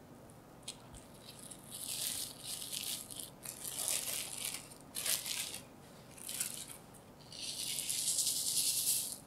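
Plastic cling film crinkling in several short bursts as it is peeled open around a log of cookie dough, then granulated sugar pouring from a glass bowl onto the dough as one steady hiss lasting nearly two seconds near the end.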